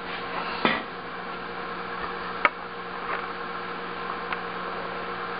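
A few light clicks and knocks of metal and glass as the 1950 Acorn Charm vending machine's glass globe and lid are handled, the sharpest about two and a half seconds in, over a steady background hiss.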